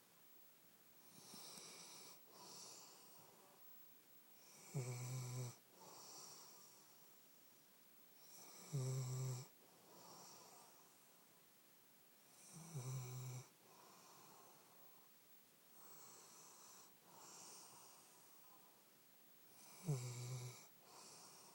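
Sleeping mixed-breed dog snoring: a short, louder pitched snore about every four seconds, four in all, with softer breaths between.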